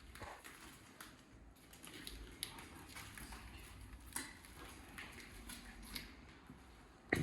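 Footsteps crunching over debris on the floor: scattered faint ticks and crackles, with one sharp knock near the end.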